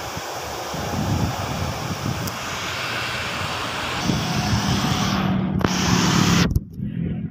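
Distant airliner engines running on the runway, mixed with wind on the microphone. In the second half a motorcycle passes close by, its engine note steady, loudest about six seconds in.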